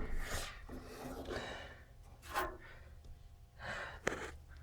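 A person's soft breaths and exhalations, several short ones, with a sharp click a little after four seconds in.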